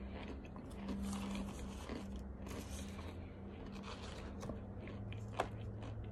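Crunchy baked starch chunks being bitten and chewed: a run of crisp crunches and crackles, with one sharp click near the end.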